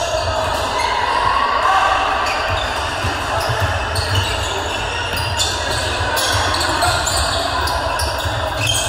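Basketball game in a gym: a ball bouncing on the court again and again, with voices echoing in the hall.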